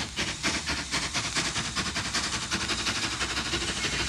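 Rapid, even train-like chugging, about six quick beats a second, making up the opening of a rock song's intro.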